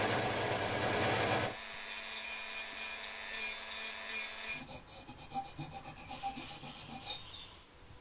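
Balsa wood ground against a spinning sanding drum for about a second and a half, then a rotary tool with a small cutting disc running with a steady whine, then quick back-and-forth strokes of hand sanding on the balsa, about four a second, that stop near the end.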